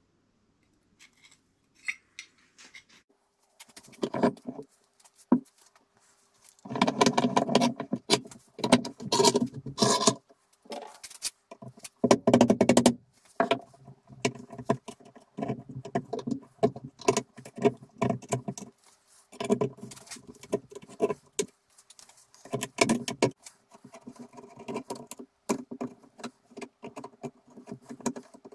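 Steel jaw plates and hand tools clinking, knocking and scraping against a cast-iron Woden M130 bench vice as the jaws are worked on, in uneven clusters with a faint metallic ring. The busiest stretch runs from about 7 to 13 seconds in.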